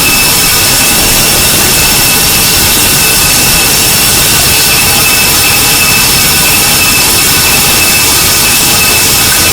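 Shower running, a steady hiss of spraying water, with a water heater's high-pitched whistle held at a constant pitch over it, a second fainter tone above it.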